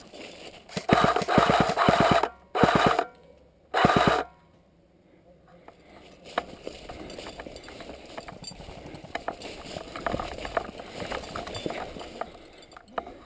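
Airsoft replica gun fired close to the microphone in three full-auto bursts of rapid mechanical clacking: one of about a second and a half, then two short ones. After them come quieter shuffling and rustling sounds of movement.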